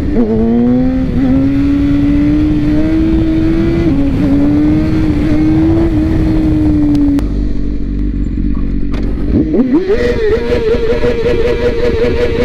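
BMW S1000RR's inline-four engine pulling at speed, its note steady and rising slowly. About seven seconds in, the engine tone drops away for about two seconds, leaving a low rumble. Then the engine revs up and holds a higher steady note.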